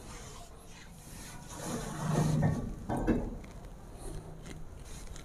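Bare hands rubbing and smoothing wet clay on the wall of a mud stove, a soft scraping and rubbing. A louder, brief sound with a low pitch comes from about one and a half to three seconds in.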